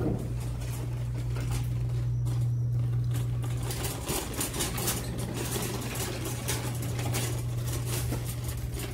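Metal shopping cart rolling and rattling across a tiled floor, with a steady low hum underneath.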